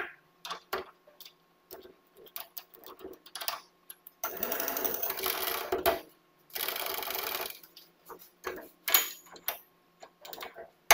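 Setting up a Nardini Mascote lathe's tool post: scattered metal clicks and knocks, with two stretches of rattling mechanical whirring from the lathe's hand-worked mechanism. The first stretch starts about four seconds in and lasts about two seconds; the second, about a second long, starts about six and a half seconds in.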